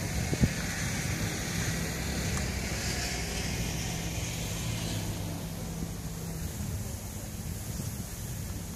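A steady low engine hum with wind noise on the microphone, fading after about six seconds; one sharp click about half a second in.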